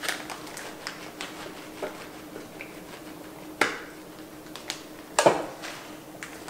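Plastic bag of shredded Gouda cheese crinkling and rustling as it is shaken over a quiche, with scattered small crackles and two louder sharp ones about three and a half and five seconds in. A faint steady hum sits underneath.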